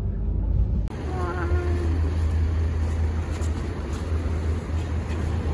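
Car cabin road rumble for about a second, then outdoor street noise: a steady low hum under an even hiss, with a faint voice briefly about a second in.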